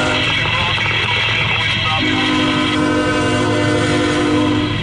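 Locomotive horn of a CSX empty coal train: the end of a short blast just as it begins, then a long steady blast from about two seconds in lasting nearly three seconds, over a steady low hum.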